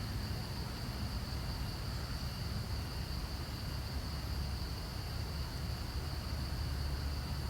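Steady high-pitched insect drone over a low, even rumble of outdoor noise.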